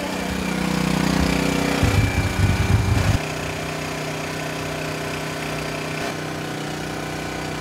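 A small engine running steadily with an even drone. About two seconds in there is a rough low rumble lasting just over a second, and after it the drone carries on at a slightly lower pitch.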